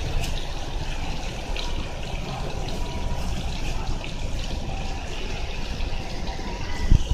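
Steady rush of water from a pond fountain, with a single thump near the end.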